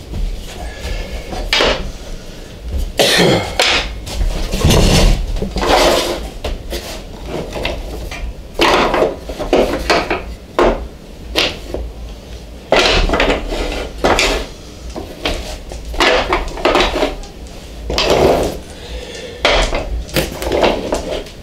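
Small oak blocks clacking and knocking against each other and a metal saw table as they are picked up, slid and stacked by hand, in an irregular clatter.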